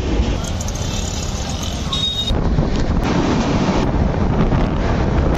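Passenger train running, heard from the open coach door: a steady rumble with wind on the microphone, and a brief high-pitched tone about two seconds in.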